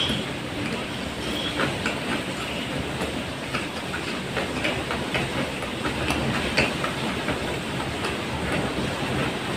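Close-up chewing of a mouthful of soft burger, with many small irregular wet mouth clicks over a steady hiss.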